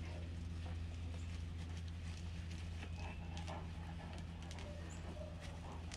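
A dog's footsteps: faint, irregular light taps and clicks over a steady low electrical hum.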